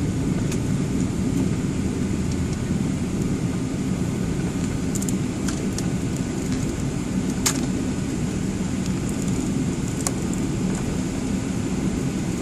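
Steady low rumble of an airliner cabin during the landing rollout just after touchdown, with a few faint clicks and rattles, the clearest about halfway through.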